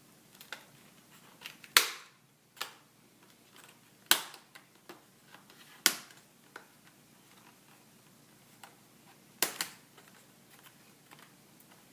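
Sony Vaio laptop's screen bezel snapping loose from the LCD panel as it is pried off with a spudger: a series of sharp snaps a second or more apart, the loudest about two seconds in, near four and six seconds, and a quick double snap late on.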